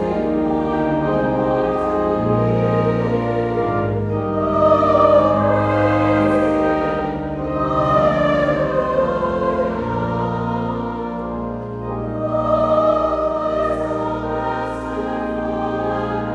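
Choir singing in sustained chords over an instrumental accompaniment of organ and brass, music from a festival hymn.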